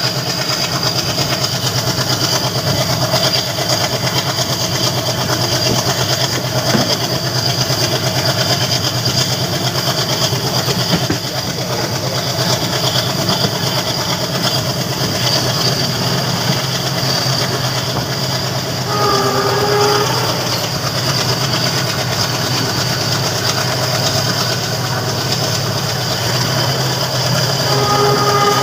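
WDM3A diesel-electric locomotive's ALCO 251 engine chugging steadily under load, heard from a coach of the train it is hauling, with wheels clattering on the rails. A brief pitched tone, likely the horn, sounds about two-thirds of the way through and again at the end.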